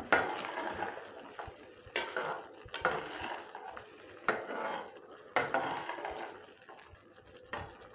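Metal slotted spatula stirring wet risotto rice in a terracotta casserole, with several sharp knocks and scrapes of the metal against the clay pot at uneven intervals.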